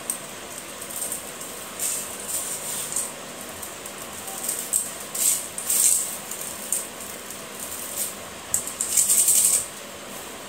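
A hand raking crushed slate pencil chips through a metal mesh sieve, the dry pieces rattling and sifting in uneven bursts, the loudest near the end.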